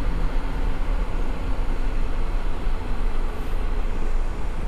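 Heavy truck's diesel engine running, a steady low rumble with no sharp changes.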